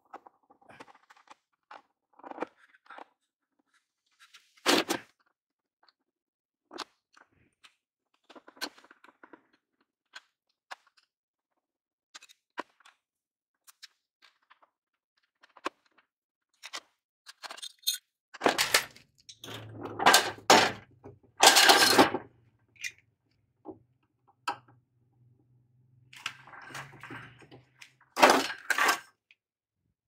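Screwdriver and metal parts of a garage door opener clicking, knocking and scraping as its casing screws are undone and the unit is shifted about. There are scattered single knocks, then a cluster of louder rattling clatter about two thirds of the way through, and another near the end.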